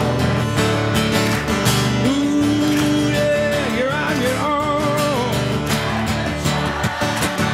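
Live song: an acoustic guitar strummed steadily under singing, with a long held vocal note in the middle that wavers in vibrato before the strumming carries on alone.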